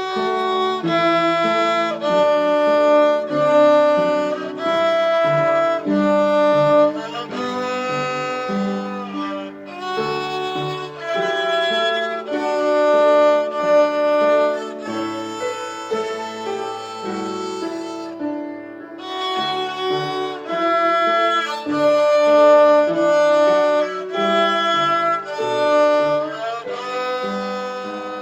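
Music played on bowed strings, a violin-led string piece of sustained notes changing every second or so.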